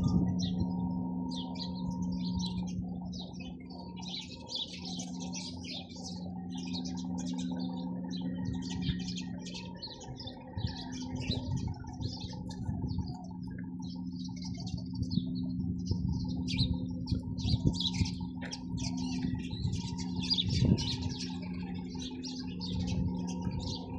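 A flock of sparrows chirping continuously in many short, overlapping calls, over a steady low mechanical hum.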